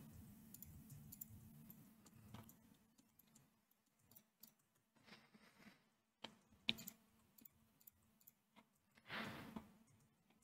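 Near silence broken by scattered faint clicks of a computer mouse and keyboard. The sharpest clicks come a little past six seconds in, and a short soft hiss follows around nine seconds in.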